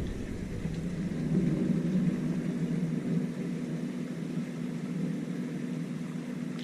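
Steady low mechanical hum, like a running motor, firming up about a second in, with a faint hiss behind it.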